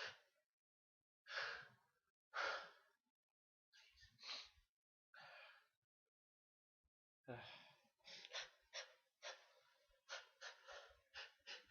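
A person's breathing during a sneezing fit: a few slow, breathy sighs about a second apart, then, about seven seconds in, a quick run of short gasping breaths, several a second.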